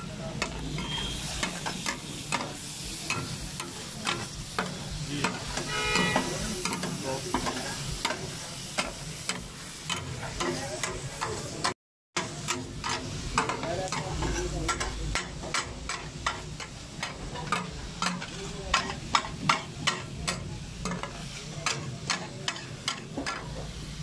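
Chicken sizzling on a large flat tawa griddle while metal spatulas scrape and clack against the iron, stirring and chopping the pieces. The clatter comes in quick runs, fastest in the last third, and cuts out for a moment about halfway.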